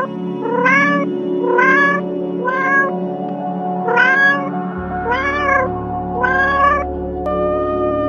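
Domestic cat meowing repeatedly, about one meow a second, each rising in pitch, over ambient background music with sustained chords.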